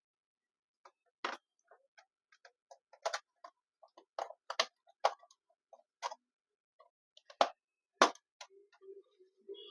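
Irregular sharp plastic clicks and snaps as a laptop's plastic back panel is pried off with a pry tool, its retaining clips popping loose one after another. A handful of louder snaps stand out among fainter ticks.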